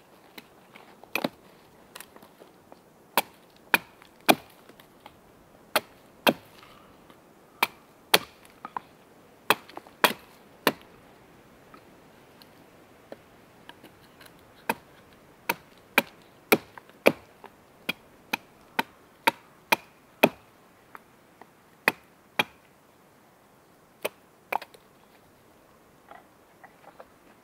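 Wood being chopped: a series of sharp, uneven knocks, about one or two a second, some coming in quick pairs.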